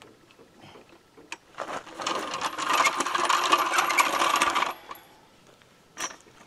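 A steel floor jack is dragged out from under the pickup. Its handle and wheels give a dense metallic rattling and clinking for about three seconds, then there is a single click near the end.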